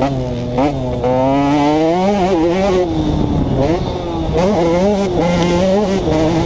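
2011 KTM 150 XC two-stroke single-cylinder dirt bike engine under riding load, its pitch rising and dropping back several times as it revs through the lap.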